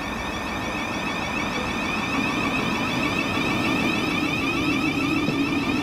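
Thameslink Class 700 (Siemens Desiro City) electric multiple unit pulling away from the platform, its traction equipment giving a high electric whine that climbs in pitch as it accelerates. A deeper running rumble grows from about two seconds in.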